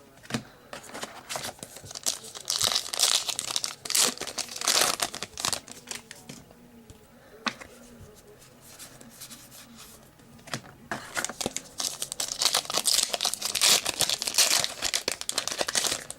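Trading-card pack wrapper crinkling and tearing as a pack is opened. The wrapper sounds in two stretches with a lull and a single click between them.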